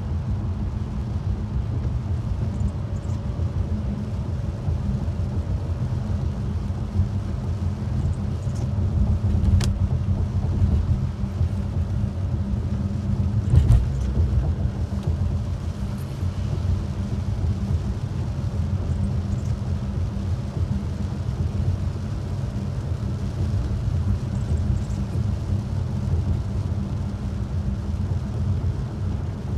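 Car interior road noise while driving on a wet road: a steady low rumble of engine and tyres, with a couple of brief clicks.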